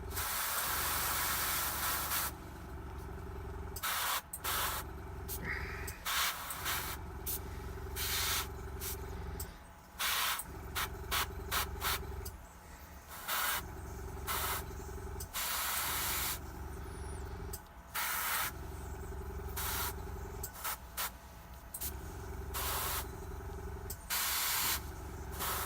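Airbrush spraying in many short bursts of hiss a few seconds apart as a neat yellow glaze is misted on as a filter, over a low steady hum that drops out briefly several times.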